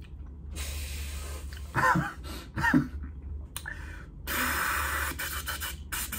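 A person imitating the noises of old apartment heaters with the mouth: long hissing breaths, broken by two short voiced grunts about two seconds in, then a louder hiss near the end.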